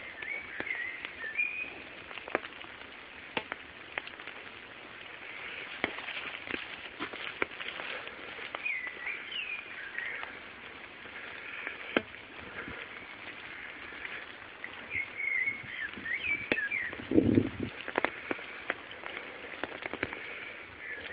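Rainwater dripping and running after a rain shower: a steady hiss with scattered drip ticks, and small birds chirping now and then. A low, louder thud about seventeen seconds in.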